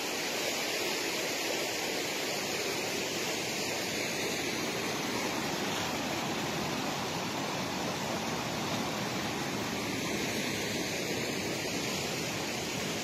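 Rain-swollen river in flood, fast water rushing with a steady, even noise.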